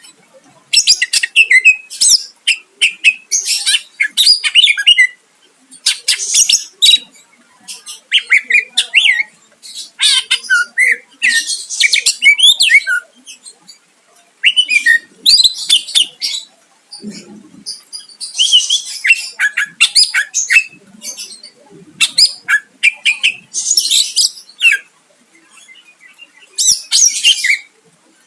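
A cucak ijo (green leafbird) singing in loud, rapid bursts of high, sliding and chattering notes, phrase after phrase with short pauses between.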